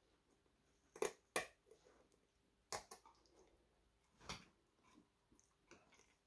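Kitchen scissors snipping into a raw perch: four short snips, two close together about a second in and two more spaced out after, in near silence.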